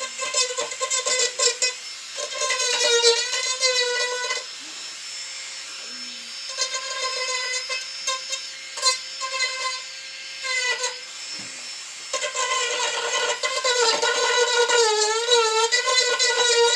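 Marathon micro motor handpiece spinning a knife-edge diamond burr at high speed, a whine whose pitch wavers and dips as the burr is pressed into the wood to smooth and sand it. It eases off twice, briefly, as the burr lightens on the work.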